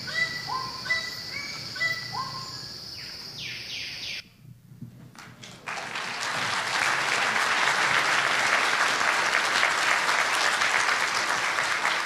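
A bird calls in a short rising phrase about once a second over a steady high insect drone, from the soundtrack of a rainforest film; it cuts off about four seconds in. After a short silence an audience applauds.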